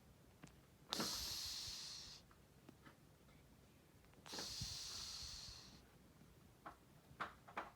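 Domestic cat snoring in its sleep: two hissy snoring breaths, each about a second and a half long and a few seconds apart, with a few faint clicks near the end.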